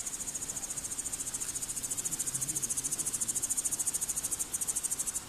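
A cricket-like insect trilling: a fast, even, high-pitched pulsing of about twelve pulses a second that cuts off suddenly at the very end.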